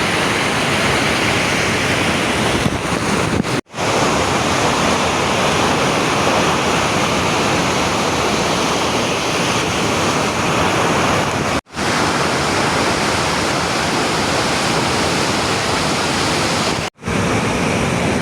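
Steady, loud rush of a waterfall. It drops out for a split second three times.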